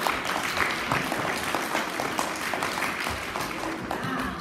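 Audience of schoolchildren and staff applauding: many hands clapping in a dense, steady patter.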